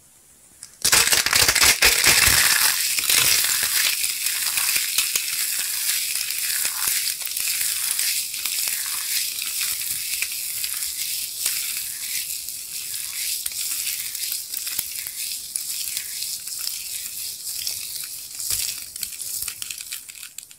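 Hands crushing two blue bowls filled with gold sequins and tinsel confetti: a loud crunch starts about a second in, then a steady dense crinkling crackle as the pieces are squeezed, easing a little toward the end.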